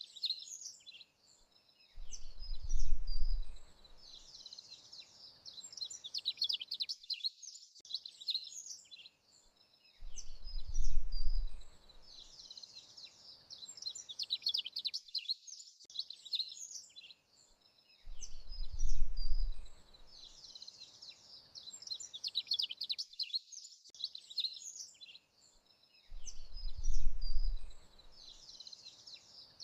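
Birds chirping and singing continuously, with a low rumble swelling up and dying away about every eight seconds, the same pattern repeating four times like a looped track.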